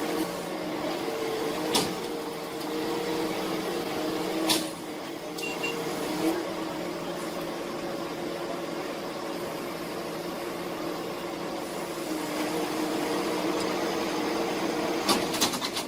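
A machine running with a steady hum, broken by a sharp knock about two seconds in, another near four and a half seconds, and a quick run of knocks near the end.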